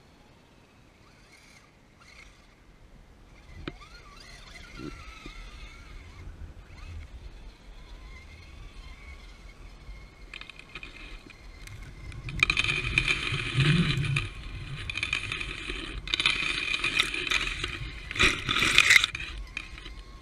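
Axial SCX10 radio-controlled crawler's electric motor and gear drive whirring as it drives through loose sand, with its tyres scraping and crunching. It starts faint and becomes loud in the second half as the truck passes close by.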